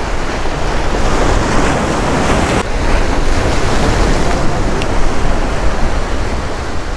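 Rough surf breaking and washing over large granite jetty boulders, a loud continuous rush of water, with wind buffeting the microphone.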